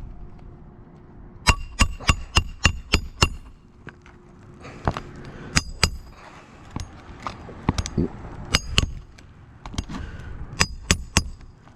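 Hand hammer driving roofing nails into asphalt shingles: quick runs of sharp strikes, each with a metallic ring, a burst of about seven early on, then pairs and small groups.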